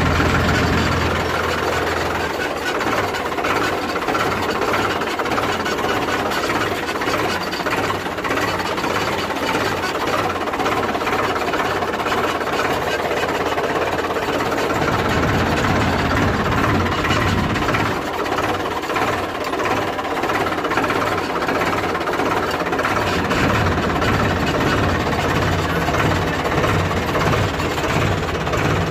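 A vehicle's engine running steadily while driving: a low drone with a regular pulsing beat under a wash of road and wind noise.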